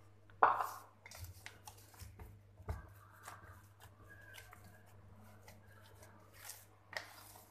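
Hands kneading soft yeast dough in a stainless steel bowl while working in dry flour: irregular soft pats and rubs of dough against the metal, loudest about half a second in.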